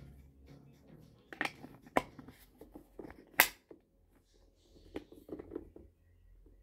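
Hard plastic clicks and knocks from a pressure washer's foam bottle and spray gun being handled and snapped together: a few sharp, separate clicks, the loudest about three and a half seconds in.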